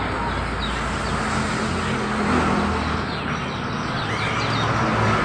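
Steady traffic noise with engines humming, and small birds chirping faintly a few times around the middle.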